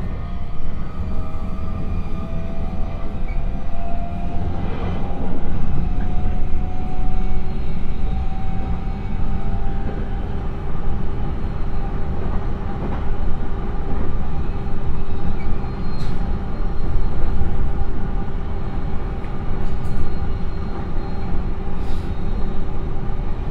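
Interior running noise of an E129 series electric train on freshly ground long rail. The Toyo Denki IGBT-VVVF inverter and MT75B traction motors whine with a slowly rising pitch, and the whine drops out about ten seconds in as the train reaches about 73 km/h and coasts. Over a heavy low rumble, the wheels give a steady humming drone from the grinding marks on the railhead, with no rail-joint clicks.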